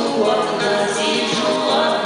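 Two women singing a duet into microphones.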